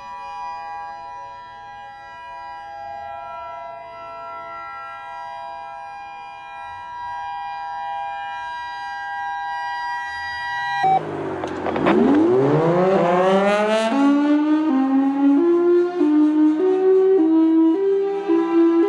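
Siren recordings: a steady, droning chord of several held tones, then about eleven seconds in a louder siren winds up from a low pitch over about three seconds and moves between pitches in steps.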